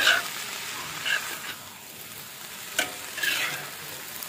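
Chopped greens sizzling in a hot wok while a metal ladle scrapes and turns them, with a sharp clink of the ladle against the wok at the start and another nearly three seconds in.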